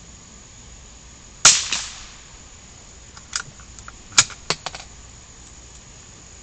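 A single gunshot about a second and a half in, its report trailing off over half a second, followed a couple of seconds later by a few short, sharp clicks.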